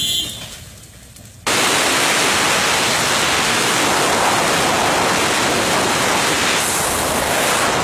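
Strong wind rushing over the microphone, a loud, steady noise that starts abruptly about a second and a half in.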